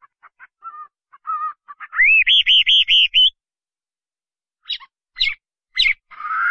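Hwamei singing: a few soft short notes, then a loud run of about six quickly repeated rising-and-falling clear notes lasting over a second, followed by three sharp down-slurred notes and a rising phrase near the end.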